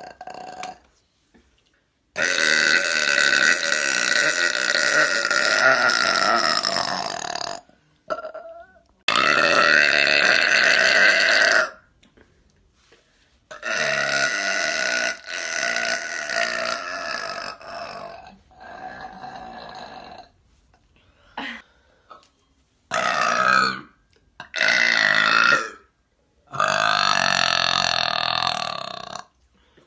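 A woman burping: a series of about six long, drawn-out burps with short pauses between. The first lasts over five seconds, and the last three are shorter.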